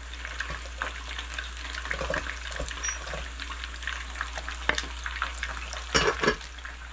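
Hot cooked rice being scooped with a plastic rice paddle into a wooden sushi-rice tub: light scrapes and taps of paddle on tub, with a cluster of louder knocks about six seconds in, over a steady background hiss.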